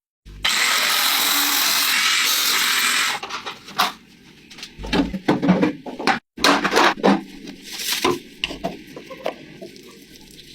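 Workshop noise from scooter restoration work: a loud, steady rushing noise from a tool for about three seconds, then scattered knocks and metal-on-metal clatter of parts being handled.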